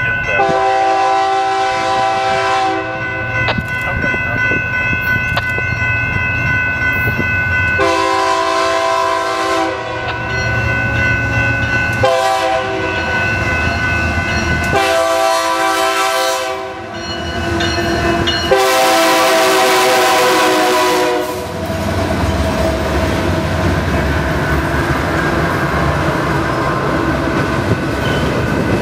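Freight locomotive air horn sounding about five long blasts, the last the loudest. After it, the steady rumble of the train rolling past, with wheels clattering on the rails.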